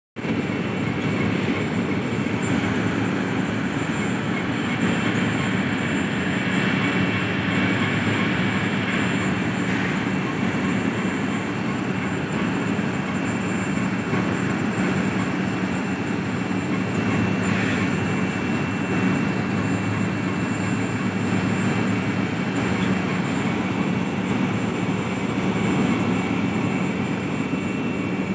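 Belt conveyor running: a steady, loud mechanical rumble from the moving belt and its machinery, with a thin steady whine over it.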